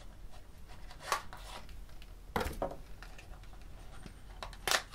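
Pocket knife slicing into a small cardboard processor box, with scraping and a few sharp clicks as the cardboard is cut and handled.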